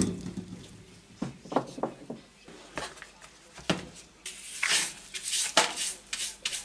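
A part set down on a wooden workbench with a sharp knock, followed by a few knocks as a plastic dustpan and hand brush are picked up. From about four seconds in, the hand brush sweeps small bits across the bench into the dustpan in quick, hissing strokes.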